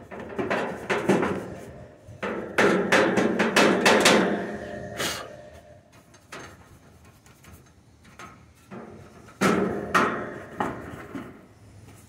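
Paintbrush scrubbing dust off the sheet-metal panel and wiring inside an air-conditioner condenser's electrical compartment, in three bursts of quick scraping strokes with knocks of the brush against the metal.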